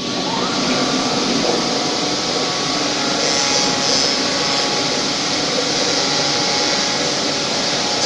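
Automatic linear copy shaper running, its motor and cutter making a steady mechanical whir.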